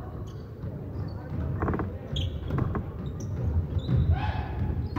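Indoor volleyball rally on a gym court: the ball is struck with sharp smacks, and players shout calls.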